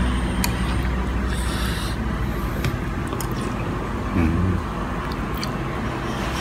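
Metal spoon clinking lightly against a soup bowl a few times over a steady low background hum, with a brief mouth sound of tasting from the spoon about four seconds in.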